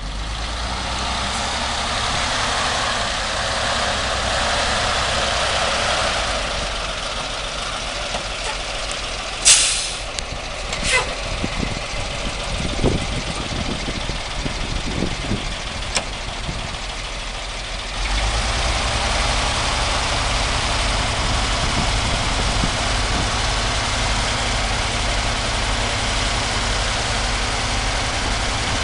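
The IHC six-cylinder engine of a 1970 International 2010A grain truck idling steadily. A short sharp hiss comes about nine seconds in, with a smaller one a second later, and the low engine rumble grows steadier and stronger near the end.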